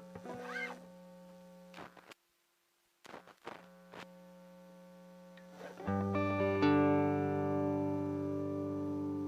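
Electric guitar played through a distortion effect: a faint held note and some string and handling noises that cut out briefly, then a chord struck about six seconds in and left ringing.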